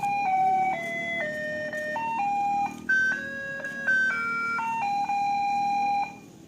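A tinny electronic jingle melody played one clear note at a time over low background noise. It cuts off about six seconds in.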